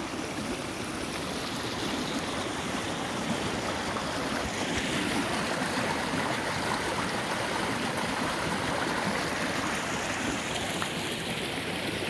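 Stream water flowing steadily.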